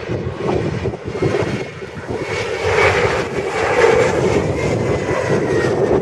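Jet airliner engines roaring as the plane moves past the airport, growing louder about two and a half seconds in, with a faint steady whine over the roar.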